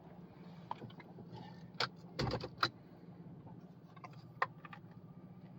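Car engine idling, heard from inside the cabin as a steady low hum, with a few sharp clicks and a heavier thump about two seconds in.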